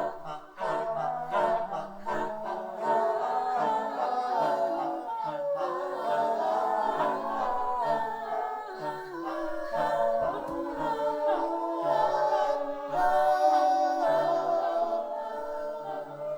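A choir of mixed voices singing without instruments, several overlapping parts moving in short held notes.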